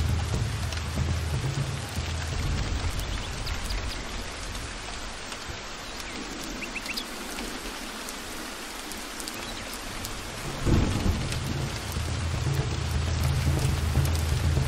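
Heavy rain falling steadily with rolling thunder. The low rumble dies away in the middle, then a sudden loud thunderclap breaks about ten and a half seconds in and the rumble rolls on.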